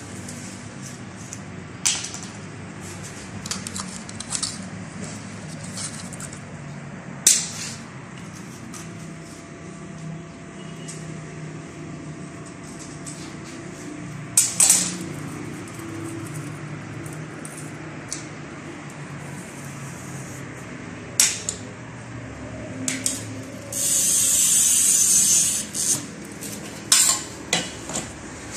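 Sharp clinks and knocks of tools and hands on a sheet of mirror glass. Late on, a glass cutter is drawn across the glass, scoring a line with a steady high scratching hiss about two seconds long.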